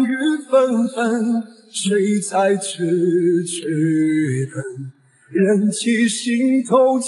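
Background song: a solo voice sings long held notes with vibrato, with little accompaniment heard. It breaks off briefly about a second and a half in and again about five seconds in.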